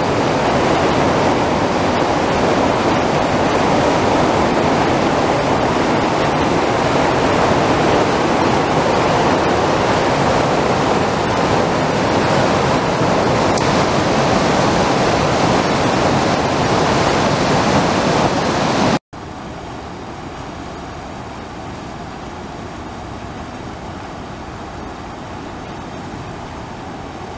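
Fast, turbulent floodwater rushing down a flash-flooding arroyo, a loud, steady wash of churning muddy water. About two-thirds of the way through it cuts abruptly to a quieter, steady rush of the flood.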